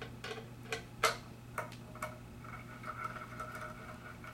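Screwdriver driving a screw into the metal top cap of a barber-chair hydraulic pump: several light metallic clicks, the loudest about a second in, then a faint steady high tone through the second half as the screw turns.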